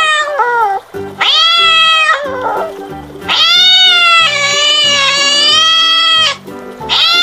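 Domestic cat meowing repeatedly: a short meow about a second in, then a long, drawn-out meow lasting about three seconds, and another starting near the end. Background music plays underneath.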